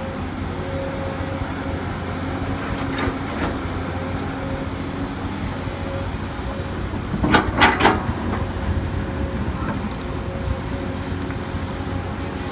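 Komatsu PC200 hydraulic excavator's diesel engine running steadily as it works, with a brief burst of loud metallic clanking a little past halfway.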